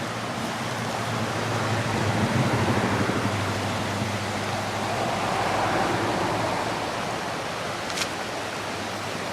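Fast-flowing floodwater rushing steadily through a normally dry ravine, swelling slightly in the middle, with a single sharp click about eight seconds in.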